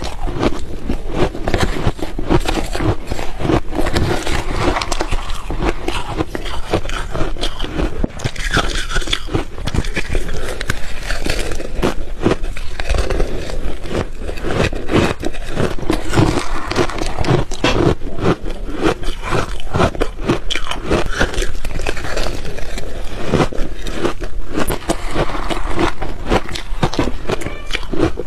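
Close-up crunching of refrozen ice being bitten and chewed, dense rapid cracks and crackles with no pause.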